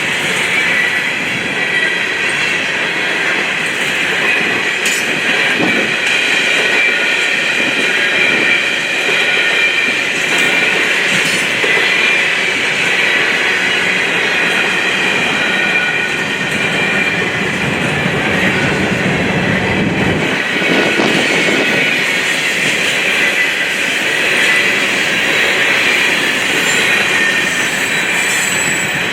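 Freight train cars rolling past on steel rails: steady, loud wheel-and-rail noise, with a high, thin squeal from the wheels held throughout.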